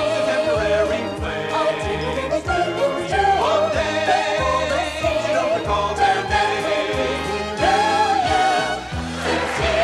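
Orchestral show music for a ballroom dance number: a melody line over a steady bass beat.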